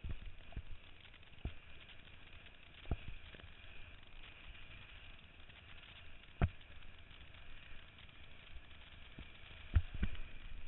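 Kiteboard skimming over choppy sea: a steady hiss of water and wind with irregular low thumps as the board slaps the chop, the loudest about six and a half seconds in and two more close together near the end.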